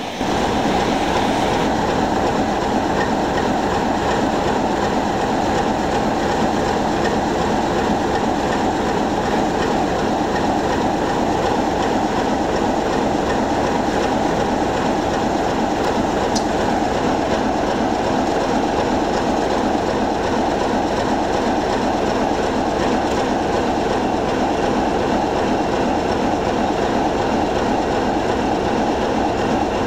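Diesel locomotive's engine running steadily and loudly as the locomotive moves slowly along the track.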